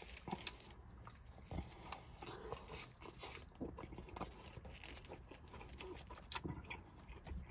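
Close-up chewing of a mouthful of burger: soft wet mouth clicks and smacks, with one sharper click about half a second in.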